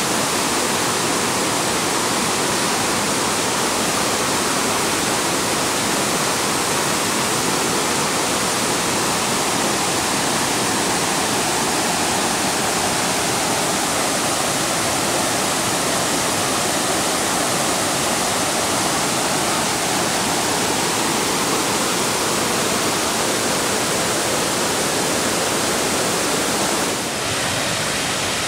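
Bald River Falls: whitewater cascading over sloping bedrock, a steady, loud rush of falling water. The sound dips briefly and shifts slightly near the end.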